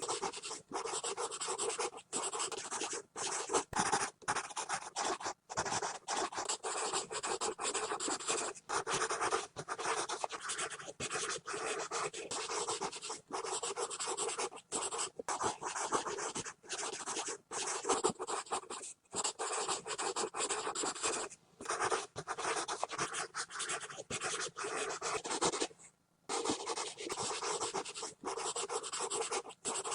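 Pencil scribbling hard and fast on paper: continuous scratchy strokes with brief lifts between them, and a longer pause about 26 seconds in.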